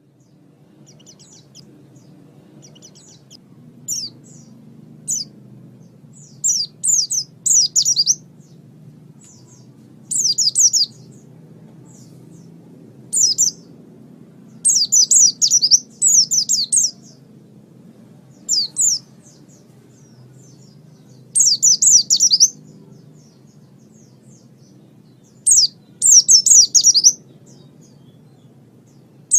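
Small songbird singing in short bursts of very high, rapid chirps. Each burst is a quick run of falling notes, repeating every one to three seconds over a faint, steady low hum.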